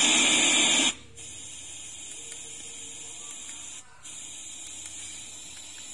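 Cheap JBL-style Bluetooth speaker giving out hiss once its music stops: a loud burst of static for about a second, then a steadier, much quieter hiss with a brief break near the middle.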